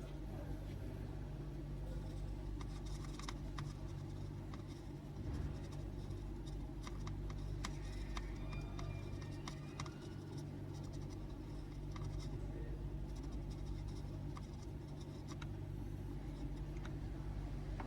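Small hand tools scratching and clicking against a laptop motherboard during repair work, with many scattered light ticks over a steady low electrical hum.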